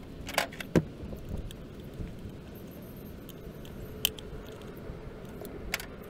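Small metal ignition parts clicking and clinking as the Pertronix Ignitor module and its hardware are handled in an open distributor: a short cluster of clicks about half a second in, then single clicks near four seconds and near the end, over a low steady rumble.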